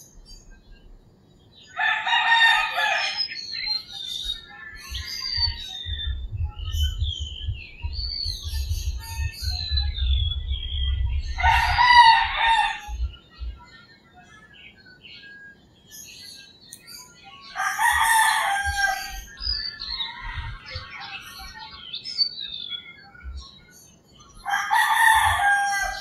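Roosters crowing, four long crows spaced several seconds apart, with small birds chirping between them and a low rumble partway through.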